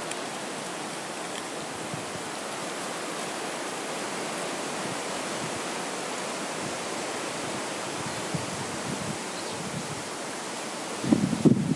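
Steady rushing of wind over the microphone, with a short, louder bump of buffeting near the end.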